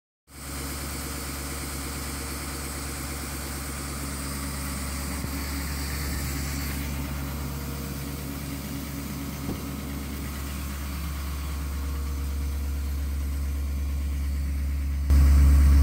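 Duramax 6.6L V8 turbo-diesel in a Chevrolet Silverado pickup idling steadily at its raised cold-weather idle of about 1100 rpm, which the engine enters when it is started cold below freezing. The engine sound jumps suddenly louder about a second before the end.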